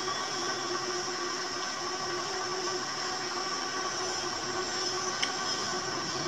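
Steady background hum with several constant tones, and a single faint click about five seconds in.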